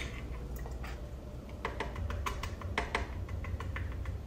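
Scattered light clicks and taps of plastic and metal as the lid of a pump-action airpot thermos is handled and flipped open, over a low steady hum.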